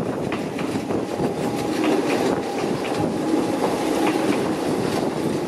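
Kōnan Railway 7000 series electric train, a former Tokyu 7000 series stainless-steel set, rolling past close by at low speed. It makes a steady rumble, and its wheels clack over rail joints every second or so.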